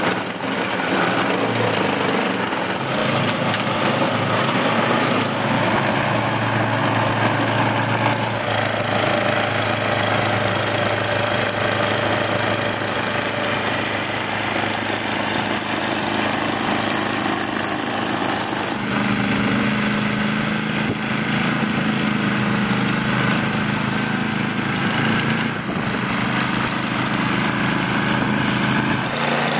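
Ariens two-stage snowblower's small gasoline engine running steadily under load while the machine throws snow out of its chute.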